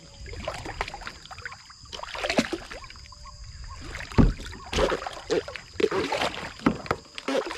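Water splashing and sloshing around a small boat, with irregular knocks and clatter against it and one loud thump about four seconds in.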